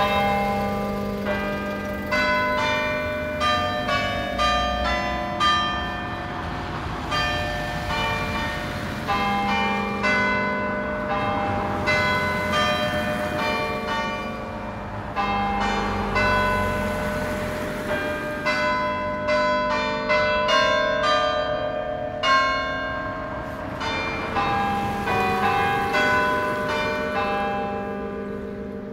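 Church tower bells ringing: several bells struck one after another at about two to three strikes a second, their tones overlapping and hanging on.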